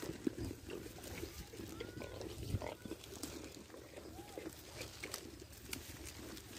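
Goats feeding close up on pellets spread on the ground, with irregular crunching and chewing clicks.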